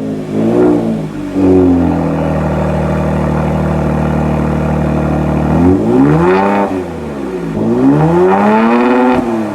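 2019 Kia Stinger GT's twin-turbo 3.3-litre V6 heard through a Borla cat-back exhaust: a quick rev blip, a steady idle for about four seconds, then two revs up and back down, the second longer and higher.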